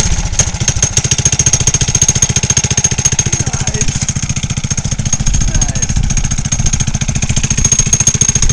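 Homemade ATV's 6 hp Briggs & Stratton single-cylinder engine running steadily, with a fast, even exhaust beat.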